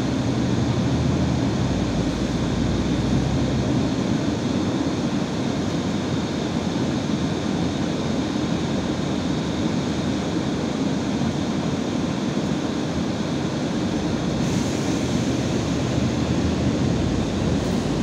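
Steady engine and road noise heard inside an Irisbus Citelis 12 m city bus as it drives along. A faint hiss joins in about three-quarters of the way through.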